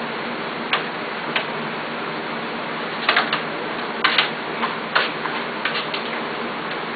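Scattered short clicks and smacks over a steady hiss, most of them in the middle of the stretch, from a litter of month-old Pembroke Welsh Corgi puppies nursing at their mother.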